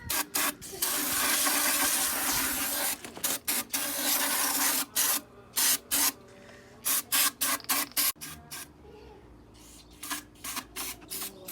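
Aerosol brake cleaner sprayed onto an oily differential to degrease it: one long spray of about two seconds, then a run of short bursts, and a few fainter bursts near the end.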